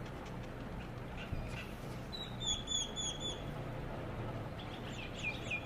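Birds chirping: a quick run of four high chirps about two seconds in, and another run of chirps near the end, over a steady low hum.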